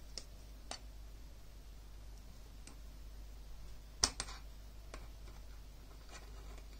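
Scattered small clicks and taps of needle-nose pliers and a screwdriver on a HyperX Cloud Alpha headset's earframe and headband joint. The loudest is a sharp double click about four seconds in.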